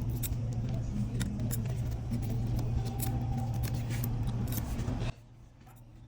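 Metal tweezer tips clicking and scraping in an iPhone's charging port as debris is picked out, over a steady low hum. Both cut off suddenly about five seconds in.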